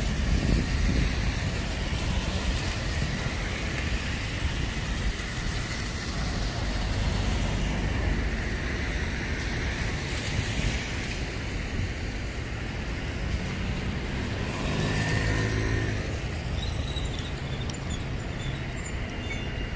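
Road traffic on rain-wet streets: passing cars with tyres hissing on the wet asphalt under a steady low rumble. A vehicle engine runs close by about thirteen to sixteen seconds in.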